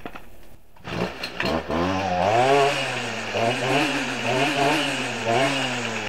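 Stihl string trimmer's small two-stroke engine starting up about two seconds in, then running with its speed wavering up and down. It is being run on the last of its gasoline and two-stroke oil mix until it stalls.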